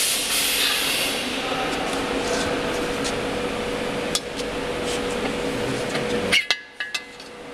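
Steady hum of workshop machinery with metal clinks and knocks as a steel workpiece is handled on a welding fixture. A brief clatter comes about six seconds in, after which the hum cuts out for a moment.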